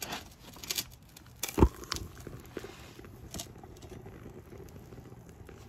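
A few clicks and one loud metal clank as the crucible is handled in its lifting shank. Then a faint crackling hiss as molten aluminum is poured into a sand-packed can, vaporizing the foam pattern inside, which burns at the can's mouth.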